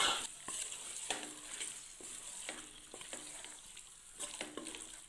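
A spatula stirring raw chicken pieces into frying masala in a metal pressure cooker: the food sizzles while the spatula scrapes and knocks against the bottom of the pot several times.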